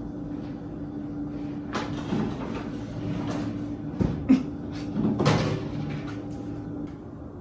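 A series of household knocks and clunks, the loudest a little past four seconds and a little past five seconds in, over a steady low hum that stops near the end.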